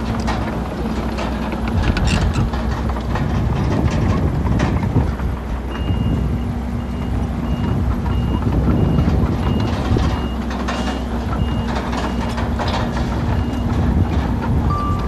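Diesel engines of earthmoving machines, a bulldozer and dump trucks, running with scattered clanks and rattles. About six seconds in, a reversing alarm starts beeping steadily at about three beeps a second and keeps on for several seconds.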